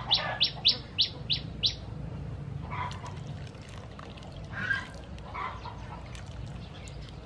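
A bird chirping: a quick run of short, high, downward chirps, about three a second, that stops about two seconds in, followed by a few scattered fainter calls.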